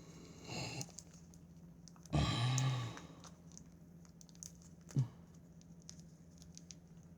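Packaging being handled and opened by hand: soft rustles and small clicks, with a louder rustle about two seconds in and a short knock about five seconds in.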